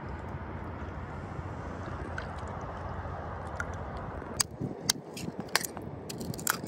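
A steady rushing noise for the first four seconds or so. Then a metal pick knocks and scrapes against mud-covered oyster shells, prying one open: a run of sharp clicks about every half second, with wet squelching of the mud.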